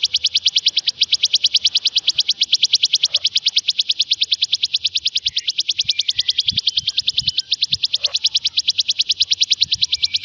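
Ciblek sawah (plain prinia) song: a continuous, even, rapid trill of sharp high notes, about eight a second.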